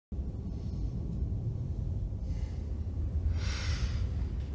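Steady low rumble of a TV episode's soundtrack, the hum of a spaceship interior. Two short breathy exhales come over it, about two and three and a half seconds in.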